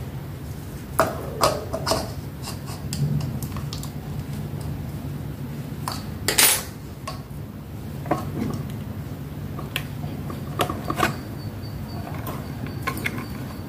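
Clicks, clinks and knocks of hands handling metal and plastic parts of an industrial sewing machine's servo motor and control box, with a louder knock about halfway through, over a steady low hum.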